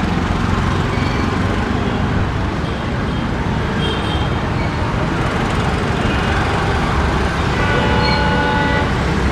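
Steady loud rumble of a moving vehicle, with short horn toots about four seconds in and a longer multi-tone horn blast lasting about a second near the end.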